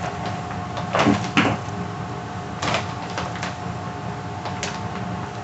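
Hands squeezing and pulling apart sticky cloud dough made from conditioner and cornstarch on a plastic-covered table, with a few scattered slaps and knocks.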